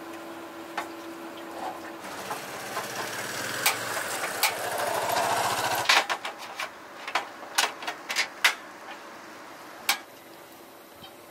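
A spatula stirs and scrapes a thickening cream mixture in a nonstick frying pan, and the scraping grows louder over a few seconds before stopping abruptly. A string of about a dozen sharp taps and clicks of the utensil against the pan follows.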